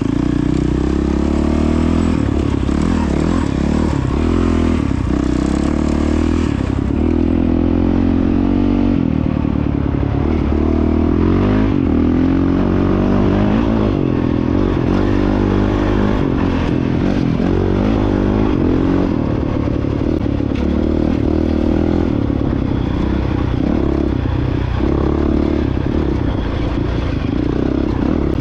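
Honda CRF450X dirt bike's single-cylinder four-stroke engine running while riding off-road, its pitch rising and falling with the throttle.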